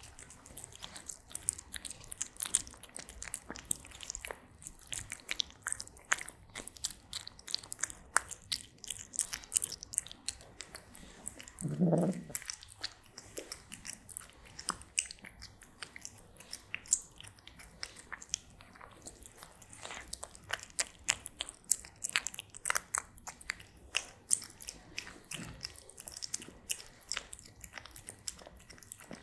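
A cat eating close up, chewing and crunching its food in a rapid, irregular run of crisp clicks. About twelve seconds in there is a brief, low pitched sound.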